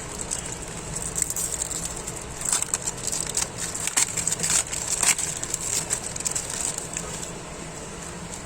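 Crinkling and rustling of a foil trading-card packet being handled, in a stretch of irregular crackles that dies down near the end.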